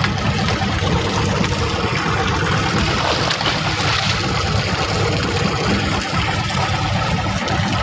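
Fishing boat's engine running steadily under way, mixed with a dense rush of wind and sea noise.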